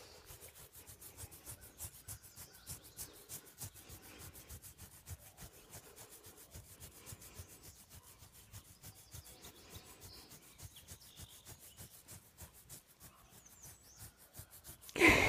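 A hand rubbing and scratching a wolf's thick fur close to the microphone: a quick, regular run of rustling strokes. Near the end, a brief loud vocal sound.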